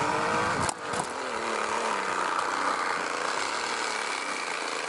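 Motorcycle-like engine sound from a bicycle. A loud pitched burst breaks off in the first second, then the note sinks in pitch over about two seconds and settles into a steady buzzing drone.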